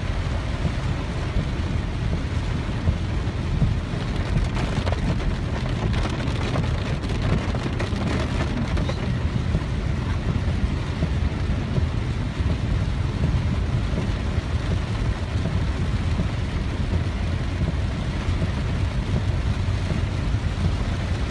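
Car driving on a flooded street, heard from inside the cabin: a steady low rumble of engine and road with a steady hiss over it.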